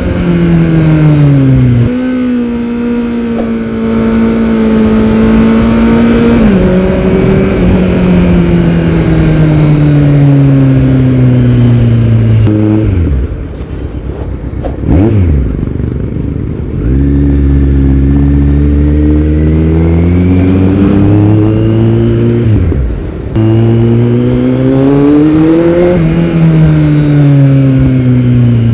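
Kawasaki Z900's inline-four engine through a Yoshimura R77 full-system exhaust, pulling up through the gears. The pitch climbs steadily and then drops sharply at each upshift. About halfway it goes briefly quieter, then there is a quick rev up and down before it pulls again.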